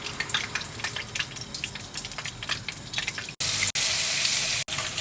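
Battered fish frying in hot vegetable oil, crackling and sizzling. About three and a half seconds in, it jumps to a louder, steady sizzle.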